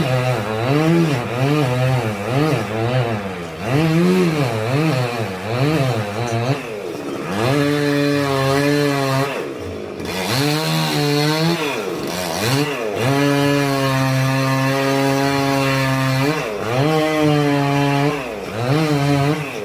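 Two-stroke chainsaw revving up and down about twice a second, then held at a steady high speed for a few seconds at a time with short drops between, as it cuts into dry dead wood.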